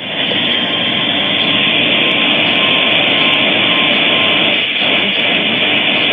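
Loud, steady static hiss from a weak, noisy NOAA Weather Radio FM signal on a radio receiver, with a faint steady tone running under the hiss.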